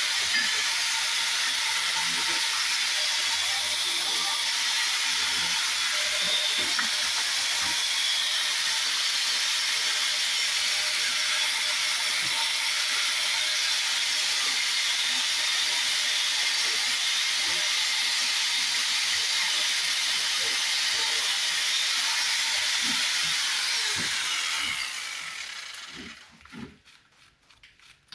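Angle grinder cutting into old brickwork, a steady grind that is switched off about 25 seconds in and winds down over a second or two, followed by a few light knocks.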